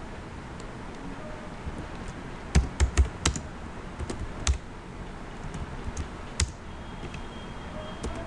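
Computer keyboard being typed on: a dozen or so scattered, irregular keystrokes, the loudest cluster about two and a half to three and a half seconds in.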